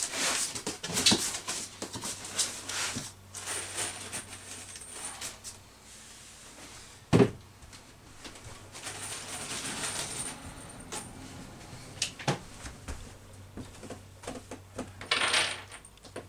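Workshop handling sounds: scattered clicks, clatter and knocks, with one sharp knock about seven seconds in, and a few short stretches of a thin high whine among the noise.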